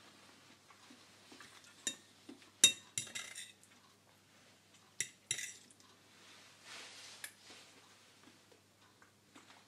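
A metal fork clinks and scrapes against a ceramic plate as it scoops up scrambled eggs with tomatoes. There are a handful of short, sharp clinks spread through, the loudest about two and a half seconds in.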